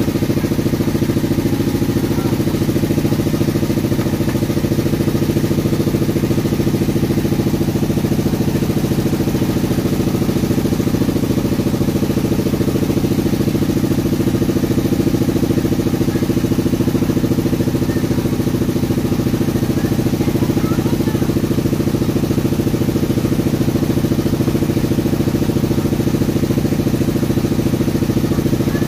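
An engine or motor running steadily at an even speed, with a fast regular pulse, loud enough to cover the knife work.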